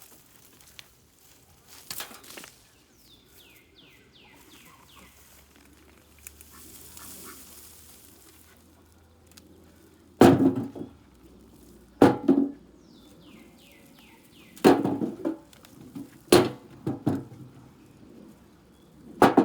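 Hand-harvesting potatoes from a raised bed: a handful of dull thuds, one early and several more in the second half. Between them, a bird sings a short run of falling chirps twice in the background.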